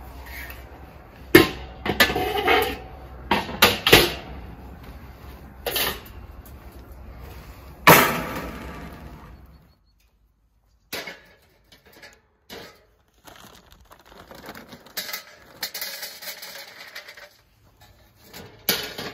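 Metal clanks and clatter from handling a charcoal kettle grill and a metal chimney starter: a series of sharp knocks, the loudest about eight seconds in with a ringing tail. Later comes a softer rattling clatter and a final knock.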